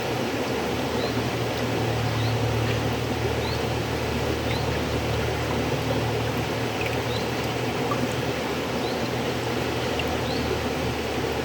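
River water flowing, a steady rushing with a low rumble underneath.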